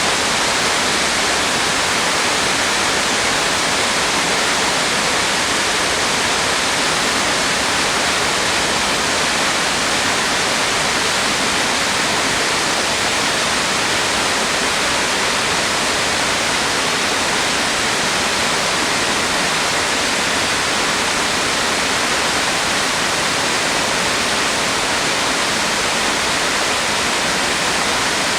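The Yonako Great Falls, the Fudō and Gongen waterfalls, giving a loud, steady rush of falling water with no let-up.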